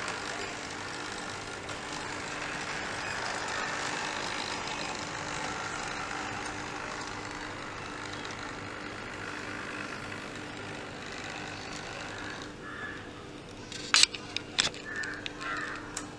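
Model railway locomotive running along the track pulling a wagon, its electric motor whirring and its wheels rattling on the rails; the sound stops about three-quarters of the way through. Two sharp clicks follow near the end.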